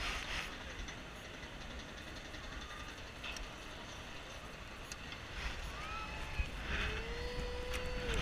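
Wind buffeting the microphone on a high chain-swing ride as it circles, a steady low rumble with brief gusts. A few short gliding cries sound over it, one held for over a second near the end.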